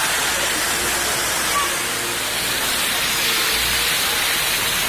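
River water rushing over rocks in white-water rapids: a loud, steady rush of water, with faint voices in the background.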